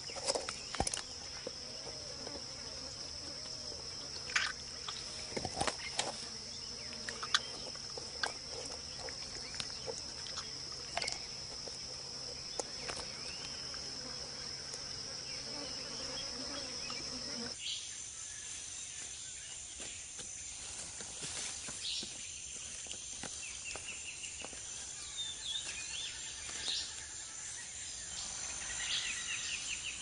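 Steady high-pitched drone of rainforest insects, with scattered sharp cracks and crunches as a jaguar bites through a turtle's shell. About two-thirds in, the insect drone shifts to a higher pitch, and a few short bird chirps come near the end.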